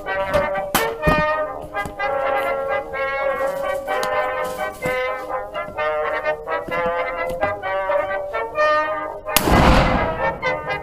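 Brass-band background music playing throughout. About nine and a half seconds in, one loud rifle shot cuts across it.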